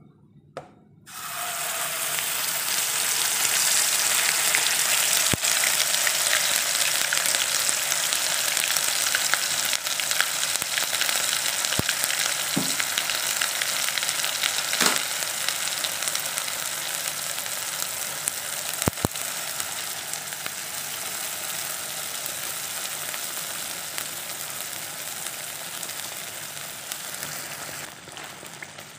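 Blended chili paste frying in hot oil in a non-stick pan. A loud, steady sizzle starts abruptly about a second in as the paste hits the oil, eases gradually, and drops in level near the end, with a few sharp clicks along the way.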